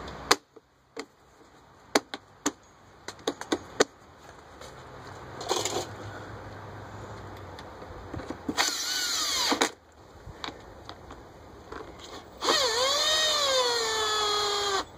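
Sharp plastic clicks and knocks from fitting a generator's plastic side cover, then a cordless drill driving in the cover's Phillips screws: a short burst about five seconds in, then two runs of about one and two seconds, the motor whine falling in pitch as it runs.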